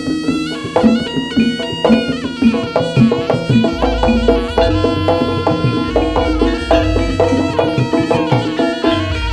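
Jaranan gamelan music: a shrill reed wind instrument plays a wandering melody over steady drum and metallophone strokes, with deep gong notes joining about four seconds in.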